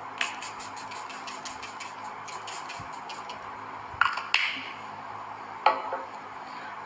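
Make-up items being handled: a quick run of light clicks and taps over the first three seconds, then two louder knocks about four seconds in.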